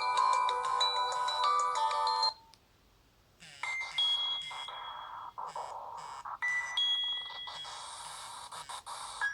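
Nokia 6300 ringtones: a polyphonic melody that cuts off suddenly about two seconds in. After a short pause, a different tone starts, with long held electronic notes stepping between pitches over a pulsing backing.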